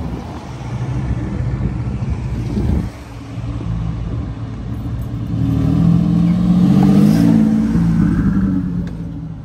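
A C5 Chevrolet Corvette's V8 running as the car pulls away, then a red Ford F-150 pickup's engine growing louder as it drives up and passes close by, loudest about seven seconds in, then fading.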